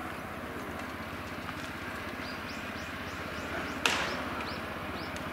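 A single sharp pop of a pitched baseball smacking into a catcher's leather mitt, about four seconds in. A run of short, high, falling chirps comes just before and around it.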